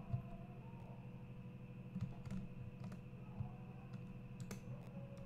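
Several scattered clicks of a computer mouse and keyboard over a steady low electrical hum.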